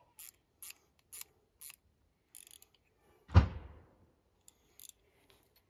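Socket ratchet wrench clicking in short strokes about twice a second as a bolt is run down on a generator frame, with one heavy thump about three and a half seconds in.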